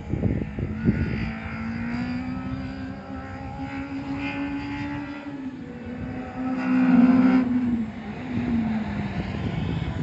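Nissan K11 March car engine running under load, its note climbing slowly and loudest about seven seconds in, then dropping away about a second later. Rough low thumping comes in the first second.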